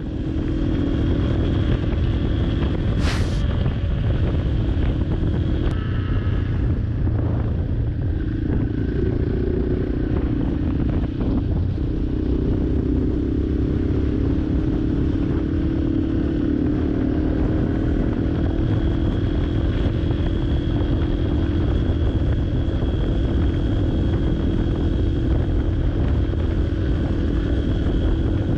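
Yamaha Serow 250's air-cooled single-cylinder engine running through an FMF PowerCore 4 slip-on exhaust, heard from the rider's seat while cruising at a steady speed. The exhaust has a steady low rumble, and there is one sharp click about three seconds in.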